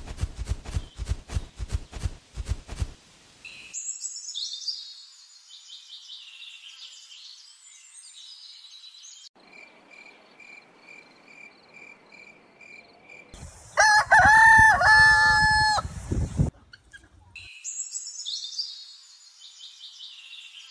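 A rooster crowing once, loudly, about two-thirds of the way through, amid small birds chirping before and after it. It opens with about three seconds of rapid, evenly spaced clicking, and a faint tone pulses about twice a second in the middle.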